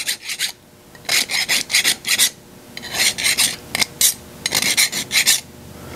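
Hand file scraping along the edges of a small metal strip: several short runs of quick strokes, the first about a second in, with brief pauses between them.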